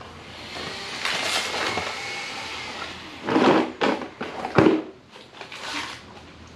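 Brake pads and parts being handled: a stretch of scraping, then a few short clatters and two sharp metal clicks.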